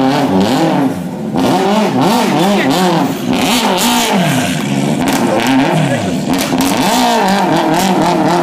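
Subaru Impreza WRC's turbocharged flat-four engine revving up and down repeatedly as the crash-damaged rally car is driven slowly on gravel.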